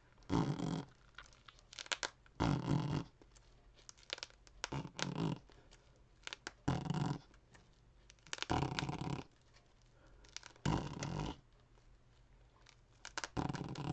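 Velcro being ripped apart, imitated with the mouth: a series of short tearing rips, each under a second, a second or two apart.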